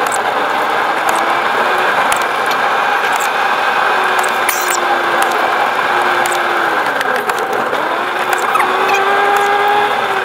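Car engine and road noise heard from inside the cabin while driving. The engine note holds steady, drops about seven seconds in and climbs again near the end, with scattered small clicks and rattles.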